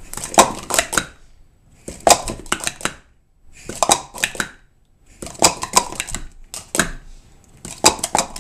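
Plastic sport-stacking cups being stacked up into three pyramids and back down on a stacking mat at speed: rapid runs of hard plastic clacks and clicks, in about five bursts of a second or so with short pauses between.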